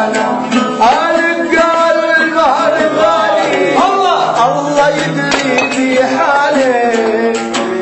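Arabic song: a man singing a sliding, ornamented melody over music with a plucked-string instrument.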